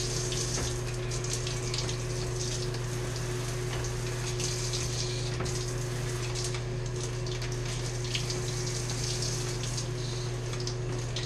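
Handheld shower head running, a steady hiss of water spray, with a steady low hum underneath.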